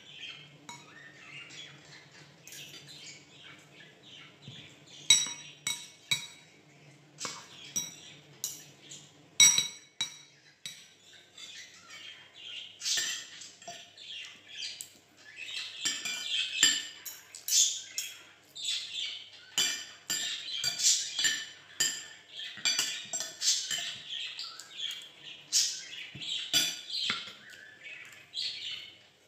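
A pet cage bird chirping over and over, busier in the second half, while a metal spoon and fork clink and scrape against ceramic bowls now and then.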